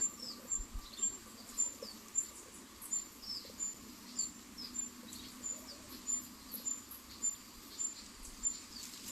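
Kedasih cuckoo calling: a short, high note repeated evenly about one and a half times a second, with quick falling chirps between the notes.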